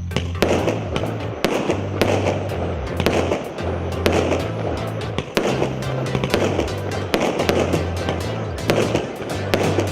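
A 49-shot consumer firework cake (0.8-inch calibre) firing in rapid succession: sharp launch pops and bursts come several times a second without a break. Background music with a steady bass line plays underneath.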